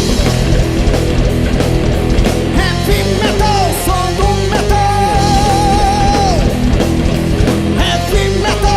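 Heavy metal band playing an instrumental passage: distorted guitars, bass and drums, with a lead line that bends up into a long note held with vibrato about halfway through.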